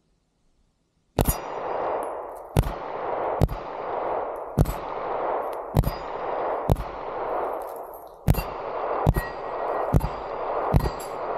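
Ten shots from a Glock-pattern pistol (SW6 Dagger slide on an SCT frame), fired at a steady pace of about one a second, starting about a second in. Each report is followed by a long ringing echo.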